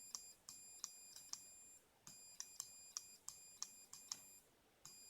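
Faint, high-pitched Morse code sidetone beeping on and off in runs of uneven length, keyed by hand on a Begali sideswiper (cootie) key, with the key's contacts clicking at the makes and breaks.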